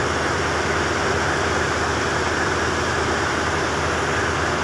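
A boat's engine running with a steady drone, under an even rush of water and wind.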